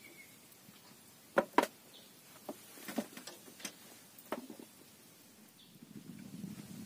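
Fishing gear being handled: a few sharp knocks and clicks, the two loudest close together about a second and a half in, then several lighter ticks.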